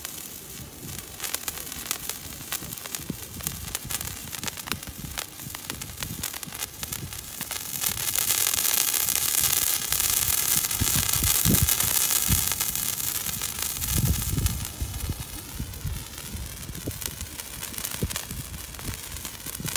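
Handheld spark-fountain firework burning, a continuous hiss of spraying sparks with crackling. The hiss grows louder from about eight seconds in and eases off again around fourteen seconds.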